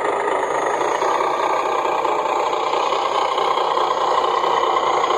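Twin 550 electric motors of a large RC tow truck running through its 3-speed gearbox, a steady whirring whine of motors and gears.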